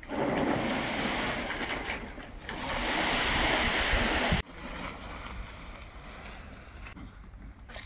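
A black plastic sheet heaped with fallen leaves being dragged over a brick-paved path: a loud, rough rustle and scrape that cuts off suddenly about four seconds in, followed by a fainter rustle.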